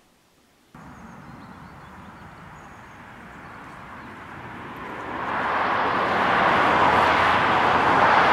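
Road traffic: a car's tyre noise swells from about four seconds in as it approaches along the road, then stays loud.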